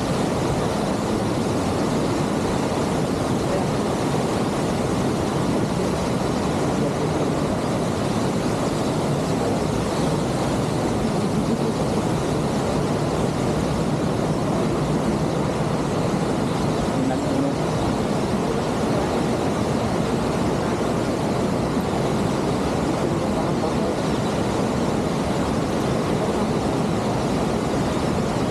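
Waterfall: a steady, loud rush of falling water that never changes.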